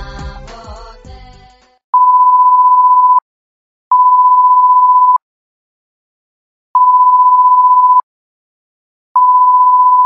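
Music fades out in the first second or two, then an electronic beep sounds four times: long beeps of just over a second each on one steady, pure pitch, with uneven gaps of silence between.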